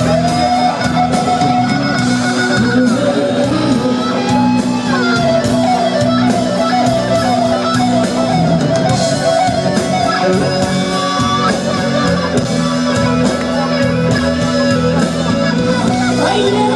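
Live blues-rock band playing an instrumental passage led by electric guitar, with bending, wavering lead notes over steady held low notes and a regular drumbeat.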